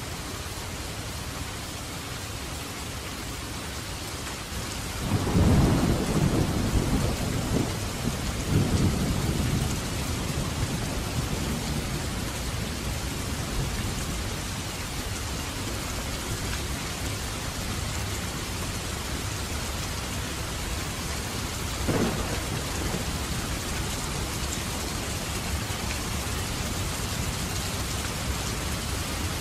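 Steady heavy rain, with a long roll of thunder starting about five seconds in and rumbling for around five seconds in two swells, then a shorter, sharper thunder crack about two-thirds of the way through.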